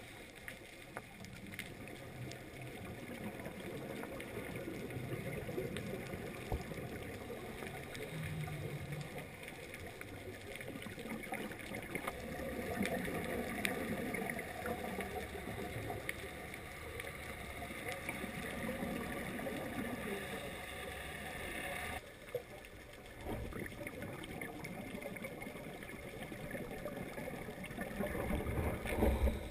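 Muffled underwater noise of scuba diving, heard through a GoPro's waterproof housing: the regulator's breathing and bubbling exhalations. It swells and fades, and drops away sharply for a moment about three-quarters of the way through.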